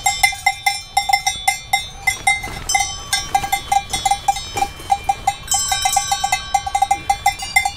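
Cowbells on a herd of young cattle clanking irregularly, several strikes a second, as the animals move about, each strike ringing briefly at a few fixed pitches.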